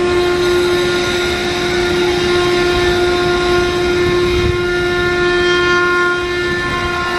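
Indian Railways WAP-7 electric locomotive's horn sounded in one long, loud, steady blast as the Rajdhani Express approaches at speed, over the rumble of the train running on the rails.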